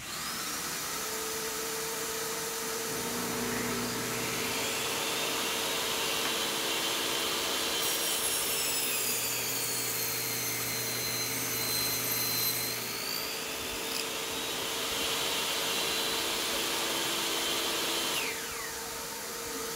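Makita MLT100 table saw starting and running up to speed, then cutting a shallow groove in an MDF board with the blade set below the board's thickness. The cut runs from a few seconds in for about ten seconds, with a higher whistling while the blade is in the board. Near the end the motor is switched off and its pitch falls as the blade winds down.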